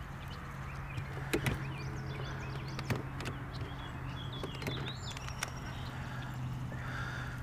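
Electric trolling motor running with a steady low hum, with a few sharp clicks and knocks from handling the baitcasting rod and reel. Faint chirps come in the middle.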